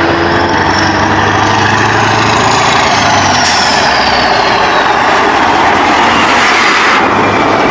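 Mack semi-truck with a loaded trailer driving past, its diesel engine running loudly and steadily.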